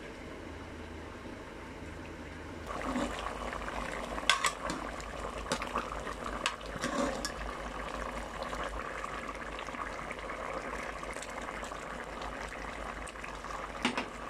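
Chicken pieces cooking in gravy in a pot, bubbling and sizzling, with scattered pops and clicks. The sound starts about three seconds in.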